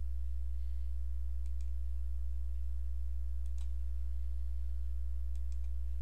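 Computer mouse clicking: three quick double clicks about two seconds apart, over a steady low electrical hum.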